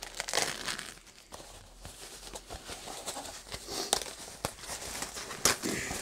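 Plastic packaging wrap crinkling and rustling as it is handled and pulled off a package, with a few sharper crackles in the second half.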